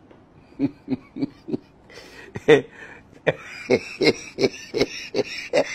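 A man laughing in short repeated bursts, about three a second, growing louder about two seconds in.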